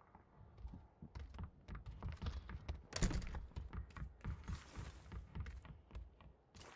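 A run of irregular clicks and knocks, with a louder knock about three seconds in.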